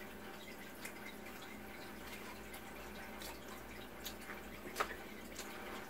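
Quiet room tone with a few faint, short clicks spread through the pause.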